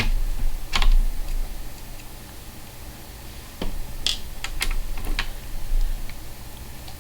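A handful of small, sharp clicks and taps, irregularly spaced, from a screwdriver working the tiny screws on a motherboard's M.2 slot cover, over a steady low hum.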